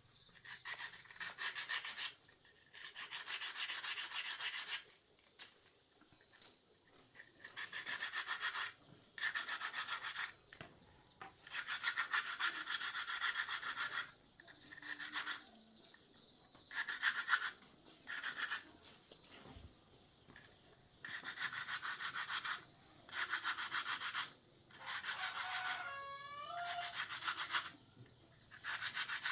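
Repeated rubbing strokes from hand cleaning or finishing work on an engine part, coming in bursts of one to two seconds with short pauses between them. Near the end there is a brief high, gliding whine.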